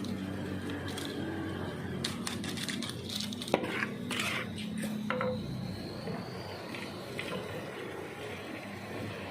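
Metal kitchen utensils clinking and clattering against pots and dishes, with a cluster of sharp knocks about two to four seconds in.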